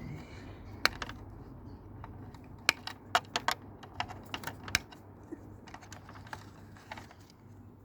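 Handling noise from dismantling a scrap tower fan: irregular sharp clicks and taps of tools and small parts. They are loudest about a second in and bunch together between about three and five seconds in, thinning out towards the end.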